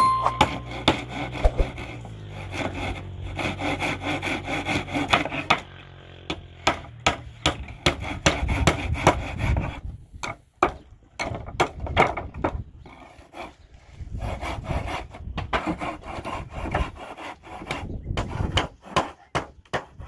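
Hand saw cutting a thin wooden plank in repeated back-and-forth strokes. A brief chime sounds right at the start.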